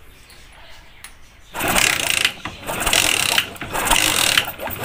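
Hero Honda Splendor Plus single-cylinder engine being cranked over with its spark plug out of the head, starting about a second and a half in. The new NGK plug is held in its cap against the cylinder fins for a spark test.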